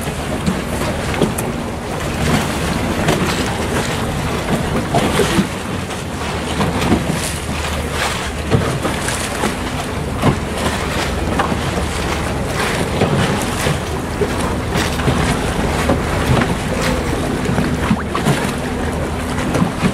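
Boat moving on the water: water sloshing and splashing against the hull in quick irregular strokes, with wind buffeting the microphone over a low steady hum.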